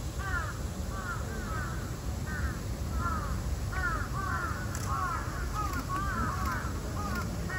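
Several birds calling over and over, with short arching calls that often overlap, above a steady low rumble.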